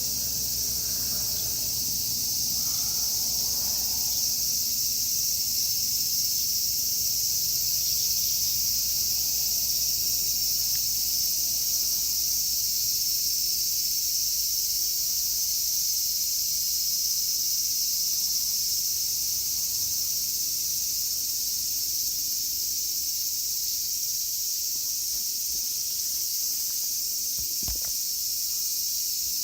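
Cicadas singing in a loud, steady, high-pitched summer chorus.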